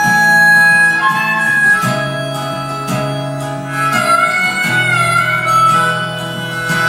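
Instrumental opening of a pop song, a held melody over steady guitar chords, played back through a Yamaha RX-V665 AV receiver and its speakers.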